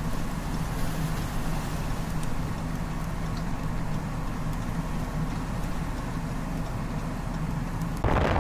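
Blizzard wind rumbling steadily, with a low vehicle-engine hum beneath it. Just before the end the wind noise on the microphone suddenly jumps much louder.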